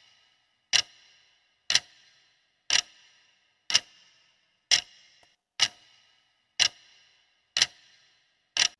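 Clock-tick countdown sound effect: one sharp tick a second, each with a short ringing tail, marking the seconds of a quiz answer timer running down.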